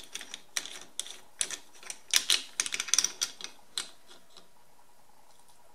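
Irregular small metallic clicks and taps as a bolt is handled and seated in a slotted aluminium collet inside a lathe's three-jaw chuck, stopping about four seconds in.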